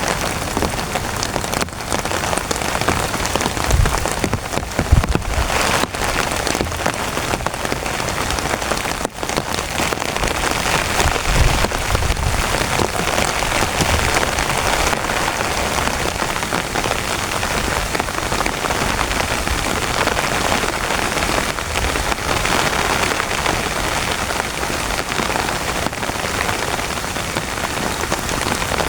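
Heavy rain pouring steadily onto a tent, with a few brief low rumbles in the first half.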